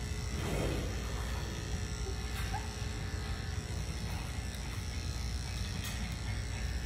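Cordless electric pet clipper running steadily as it shaves the fur on a small dog's neck.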